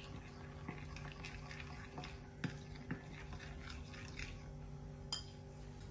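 Metal spoon stirring a runny tahini, lemon and garlic sauce in a glass bowl: soft wet stirring with light clicks of the spoon against the glass every half second or so.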